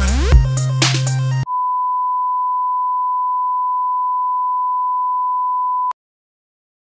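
Music with a heavy beat for about a second and a half, cut off abruptly by a steady high pure-tone beep, a television test-tone effect. The beep holds one pitch for about four and a half seconds and stops suddenly.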